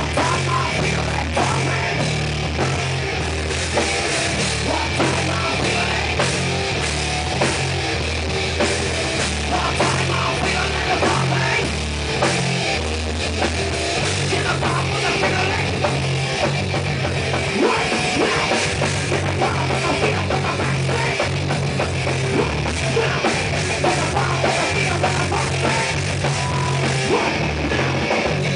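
A heavy metal band playing live, with loud electric guitar and drum kit, and low notes that change every beat or two.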